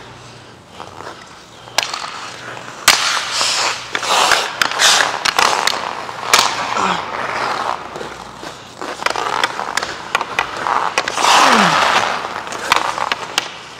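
Hockey skates carving and scraping across rink ice in long hissing stretches, punctuated by sharp clacks of a Bauer Nexus League stick on the puck.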